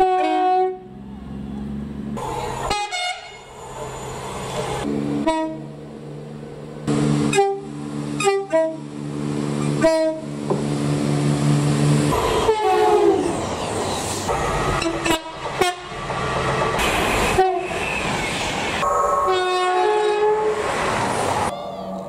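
Train horns sounding in quick succession: several short two-tone blasts and, in the middle, a long low note held for several seconds, with abrupt cuts between clips, over the noise of passing trains.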